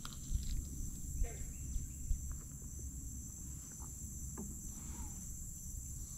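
Steady high-pitched chorus of insects, with a low rumble and a few soft knocks under it.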